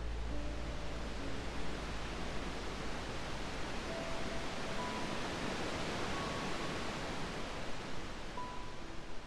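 Gentle ocean surf washing steadily, swelling a little midway, under soft ambient music of a few long held notes and a low drone that fades out about halfway.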